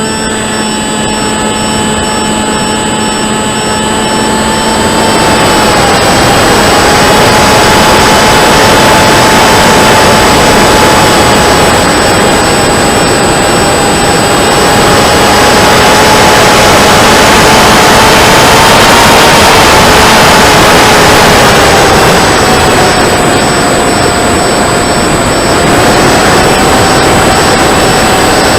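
Electric RC flying wing heard from its onboard camera: the 2216 2000kv brushless motor and 7x5 APC propeller make a steady whine that drifts slightly in pitch, under heavy wind rush on the microphone that grows louder about five seconds in.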